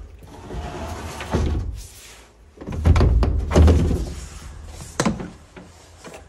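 Thuds, knocks and handling rumble as a window is pushed open past a curtain. There are heavy low thumps in the middle and a sharp click about five seconds in.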